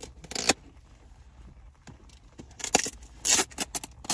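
Short scrapes and rustles of packing tape being picked at and pulled on a cardboard mailer box by a gloved hand, with a few small clicks near the end.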